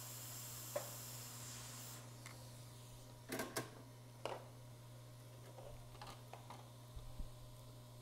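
Hot air rework station blowing with a steady hiss that cuts off about two seconds in, followed by scattered small clicks and taps of tools, over a steady low hum.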